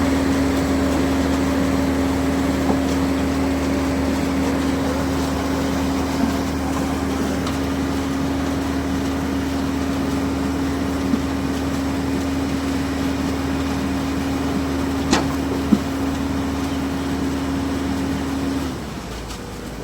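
Ajax self-loading concrete mixer running steadily at a construction site, a constant engine hum with a held tone. About a second before the end the tone cuts out and the sound drops to a lower rumble.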